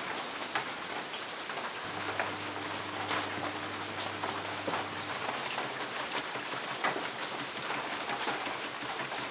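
Heavy rain falling, a steady hiss with scattered sharp taps. A faint low hum comes in about two seconds in and stops about three seconds later.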